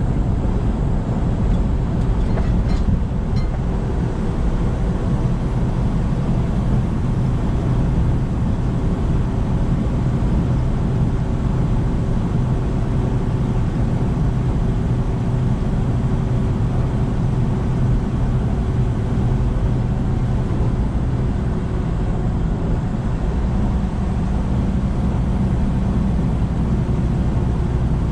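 Semi-truck's diesel engine and road noise at steady highway cruise: a loud, even low rumble with a faint engine hum running through it.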